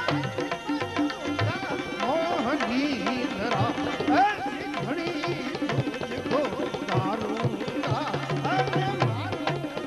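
Live Gujarati devotional folk music: a hand drum plays a busy rhythm of quick strokes and deep bass tones under a melodic line with sliding ornaments.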